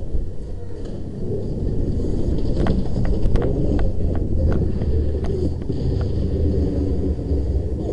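Steady low rumble of wind and handling noise on a body-worn camera's microphone as the wearer moves. Over it come about a dozen irregular sharp clicks and pops, most of them in the middle of the stretch.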